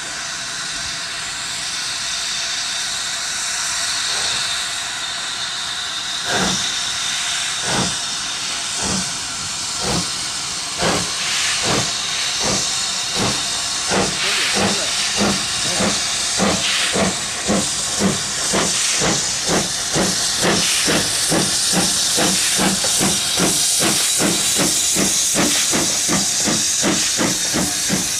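Steam locomotive No. 70013 'Oliver Cromwell', a two-cylinder BR Standard 'Britannia' Pacific, pulling away with a train. A steady steam hiss comes first; about six seconds in the exhaust beats start, slow at first, then quicken steadily as the engine gathers speed.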